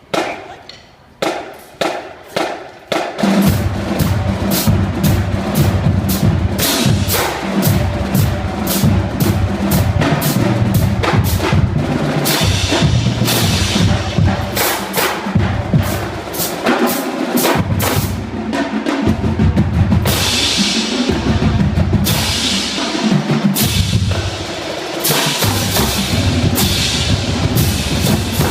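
Marching drum line playing a cadence. A few separate sharp strikes come first, then about three seconds in the full line comes in with dense snare rolls and pitched bass drum strokes.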